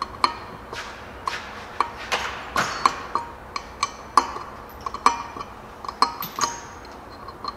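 Sharp metallic clicks and clinks, about one or two a second with a short ring, from a ratchet wrench and socket turning a bolt in the hub of a Hustler Z mower-deck spindle pulley. The bolt is being driven down against the spindle shaft to push the pulley off.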